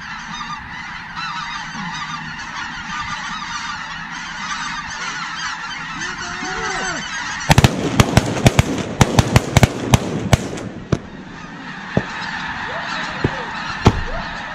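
A large flock of snow geese calling, a dense high-pitched chatter of many birds at once. About seven seconds in, a rapid barrage of loud shotgun blasts from several guns goes off over roughly three seconds, followed by a few scattered single shots near the end while the geese keep calling.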